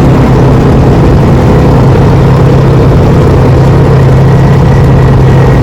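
Semi truck's engine running with a loud, steady low drone.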